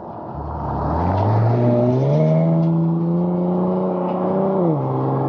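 2014 Ford Mustang accelerating hard past the camera: the engine note climbs over the first two seconds, holds high, then drops sharply about four and a half seconds in.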